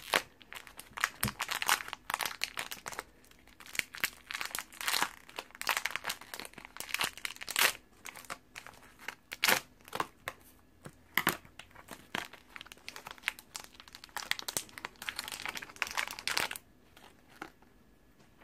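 Plastic toy blind-bag wrapper crinkling as it is unwrapped by hand, in many irregular crackles that stop near the end.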